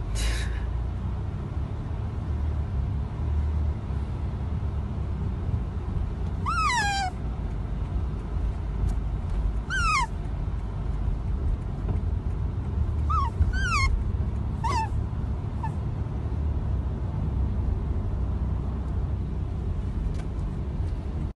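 Otter giving short, high squeaks that fall in pitch, about five of them, while it suckles on a finger, over a low steady rumble.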